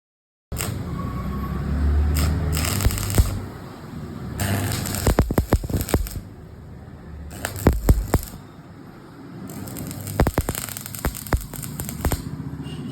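Arc welding on a vehicle's main leaf spring: the arc crackling, with clusters of sharp pops and louder and quieter stretches.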